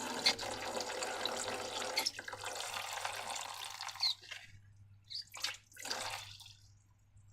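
Liquid pouring steadily for about four seconds, then two short spurts of pouring, from a balloon's contents being emptied into a container for slime-making.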